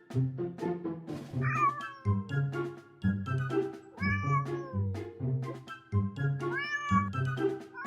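A domestic cat meowing three times, a couple of seconds apart, each call bending up and down in pitch, over background music with a steady beat.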